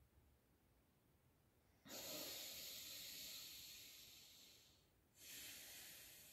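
A person's breathing after a maximal breath hold: a sudden long breath about two seconds in that fades over some three seconds, then a second breath that fades out.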